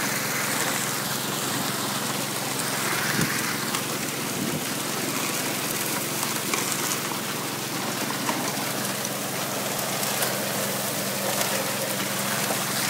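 Pumped water rushing and splashing through a high banker's hopper and sluice, a steady hiss, with the low, even hum of the Honda water pump's engine running underneath.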